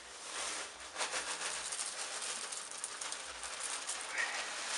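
Cornflakes being poured out of the box and scattered across the floor: a dense, dry rattle of many small flakes landing, building up about a second in and running on.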